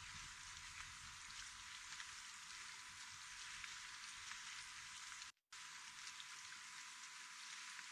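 Light rain pattering: a soft, steady hiss with faint scattered ticks. A brief dropout to silence comes a little after five seconds in.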